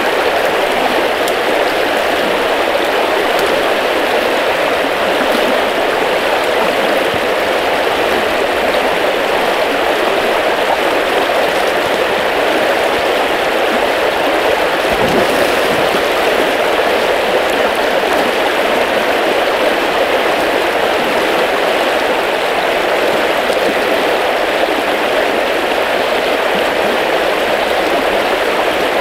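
Steady rush of a fast-flowing river running high with spring water.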